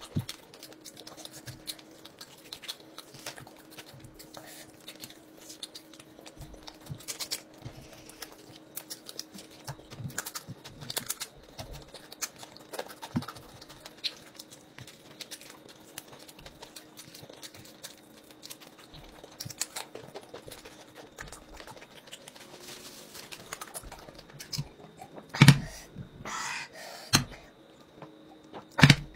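Close-miked eating: lips smacking and wet chewing as chicken and rice are eaten by hand, heard as many small irregular clicks. Near the end come a few louder knocks and a short stretch of swallowing as he drinks from a glass mug.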